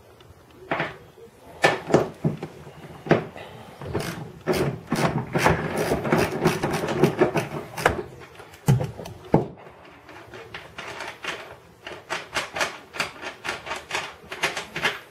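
Hand ratchet with a 15 mm socket clicking in quick runs while a car seat's floor bolt is turned out, with separate knocks and clicks of the tool between runs.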